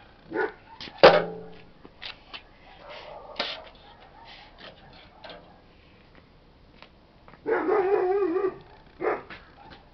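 A dog barking in short barks, with one longer wavering call near the end. About a second in there is a loud metal clank with a ringing tail.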